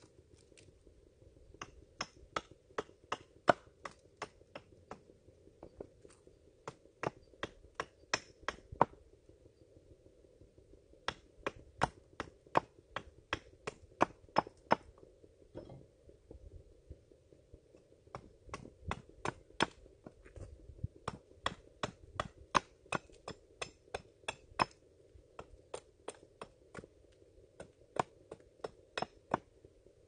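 Repeated light, sharp taps of a hand tool, about two a second, in three runs with short pauses between them.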